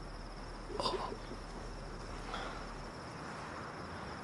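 Faint, steady chirping of crickets in a night-time forest ambience, with a brief soft noise about a second in.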